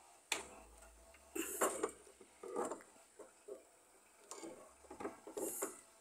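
Locking pliers gripping and twisting a broken, headless screw loose: irregular metal clicks and short scrapes.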